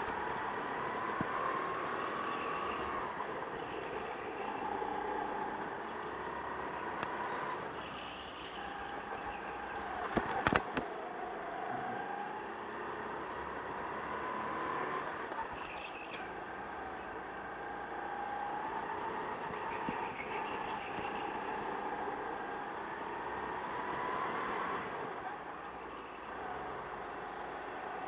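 Go-kart engine heard onboard, its pitch climbing on the straights and dropping off into the corners, lap after lap, over a hiss of wind and rushing air. A sharp knock stands out about ten seconds in.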